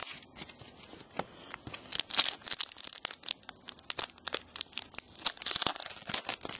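A foil trading-card pack wrapper crinkling and being torn open, in irregular crackly bursts that are densest about two seconds in and near the end.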